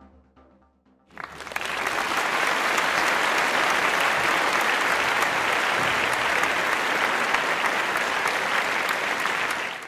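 The last notes of background music die away, then about a second in a crowd's applause starts and holds steady, a dense patter of many clapping hands, fading out at the very end.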